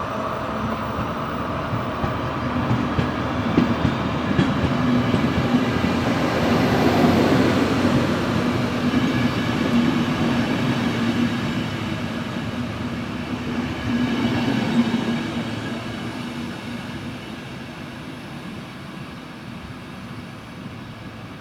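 A train running past at a station: its steady rumble and low hum swell to a peak about seven seconds in, with a few knocks from the wheels, then fade away as it moves off.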